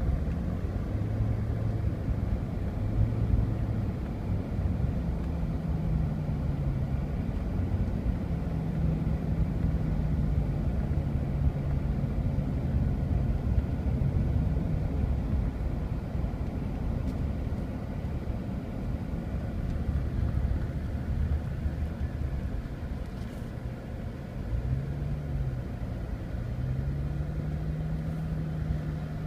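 Car interior noise while driving: steady road and engine rumble with a low engine hum that rises and falls in pitch as the speed changes.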